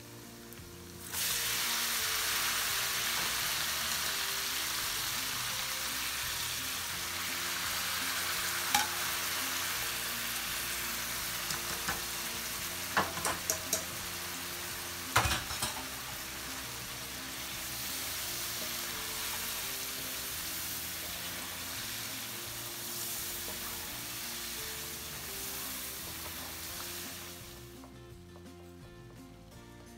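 Mutton pieces frying in hot oil in a karahi, a loud sizzle that starts suddenly about a second in and dies down near the end. A wooden spatula stirring knocks against the pan a few times midway.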